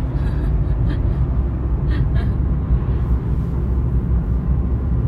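Steady low road and engine rumble heard from inside the cabin of a car driving along at speed.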